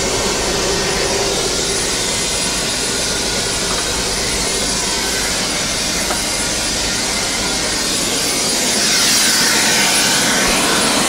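Tour helicopter's turbine engine and rotor running on the ground: a loud, steady rush with a faint high whine. It gets louder about eight and a half seconds in.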